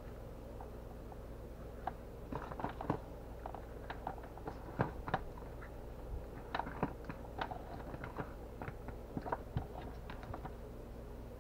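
Scattered light clicks and taps of plastic and wire as a small power meter unit and its cords and plug are handled on a tabletop, over a steady low hum.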